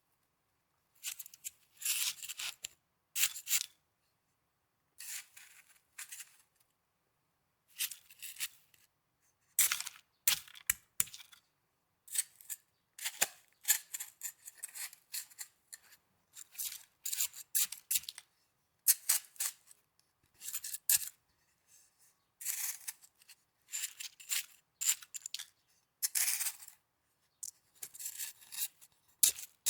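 Snow crunching close to the microphone in short, crisp bursts, with brief silent pauses between them. A few sharper clicks come about ten seconds in.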